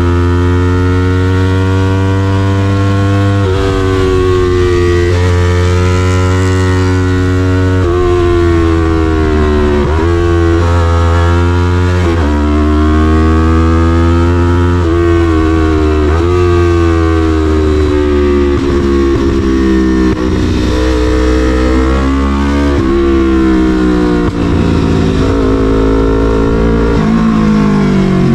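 Yamaha MT-03's parallel-twin engine through an SC-Project full exhaust, loud, accelerating through the gears: the pitch climbs and drops at each upshift, every two to four seconds, then falls away near the end as the bike slows.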